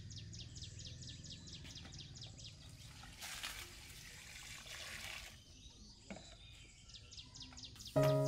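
Water poured from a plastic jug into an aluminium pot, splashing for about two seconds around the middle. A bird repeats quick falling chirps at the start and again near the end, and music comes in at the very end.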